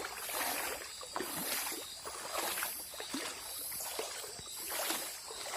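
River water sloshing and splashing in irregular bursts as someone moves in the shallows. An insect's high buzz pulses about once a second throughout.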